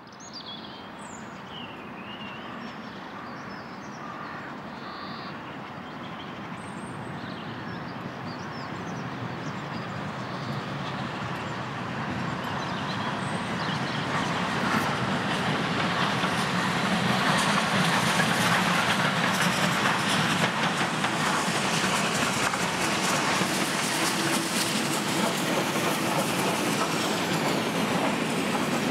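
Southern Railway Bulleid Battle of Britain class steam locomotive 34067 Tangmere approaching and running past with its train, the sound of the engine and wheels on the rails growing steadily louder over the first fifteen seconds or so and then staying loud as it passes close by. Birds chirp faintly in the first few seconds.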